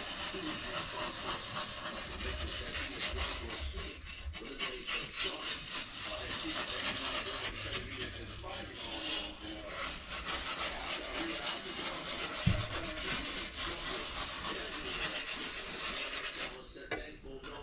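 A metal utensil stirring tomato gravy in a cast-iron skillet, scraping continuously over the bottom of the pan; the scraping stops near the end.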